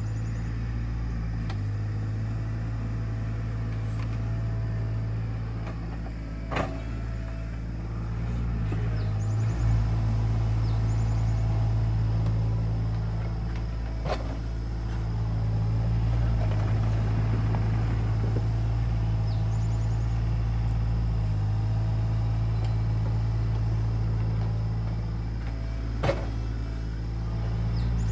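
SANY SY35U mini excavator's diesel engine running steadily under working load, its drone swelling and easing as the boom and bucket work. A few sharp knocks stand out, spread several seconds apart.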